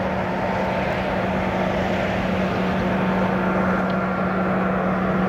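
Twin turbofan engines of an Airbus A300B4-622 freighter on landing approach: a steady rush with a low hum and whining tones, and a higher whine joining about three seconds in.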